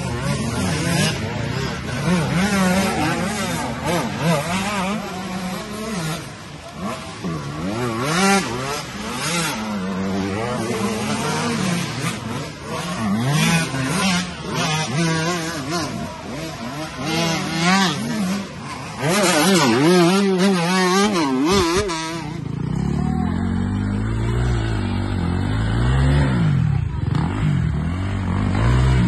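Several dirt bike engines revving hard, their pitch climbing and dropping again and again as riders work the throttle on a steep dirt hill. About twenty-two seconds in the sound turns to a lower, steadier engine note.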